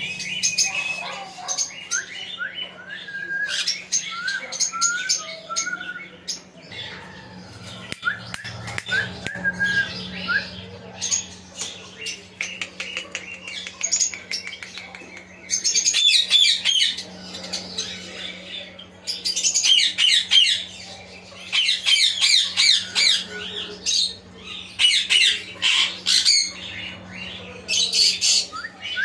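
Pet parrot calling: a string of short rising whistles through the first ten seconds or so, then repeated bouts of loud, harsh squawks.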